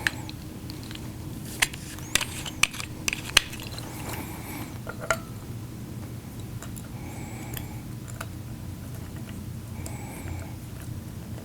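Sharp metal clicks and taps as an airbrush air-pressure regulator is handled and threaded onto the compressor's outlet fitting. There is a cluster of clicks in the first few seconds, one more about five seconds in, and a few faint squeaks later, over a steady low hum.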